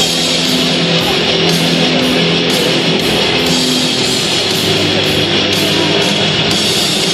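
Rock music with electric guitar and a steady beat, played loud over an arena's sound system.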